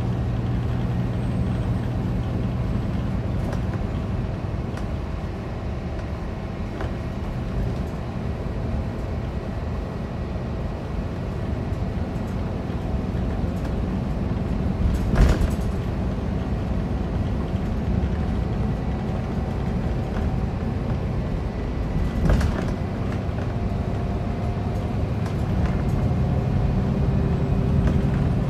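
Scania K410 coach's 13-litre six-cylinder diesel engine running steadily under way, heard inside the passenger cabin with road noise. There are two sharp knocks, about halfway through and again some seven seconds later.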